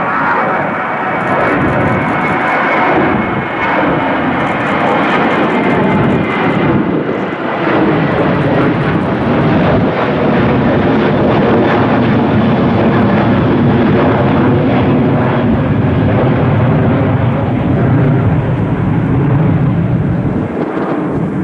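Jet airliner's engines running loud and close, a steady jet noise. A thin high whine in the first few seconds fades while a deeper rumble builds toward the end.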